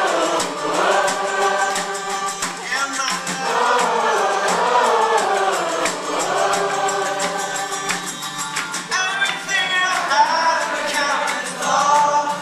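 Several male voices singing together in unison and harmony over a strummed acoustic guitar, with light, regular snare drum taps keeping the beat.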